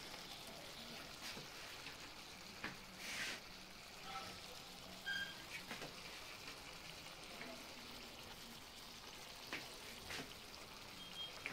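Faint, even sizzling from a pan, with a few soft taps and clicks.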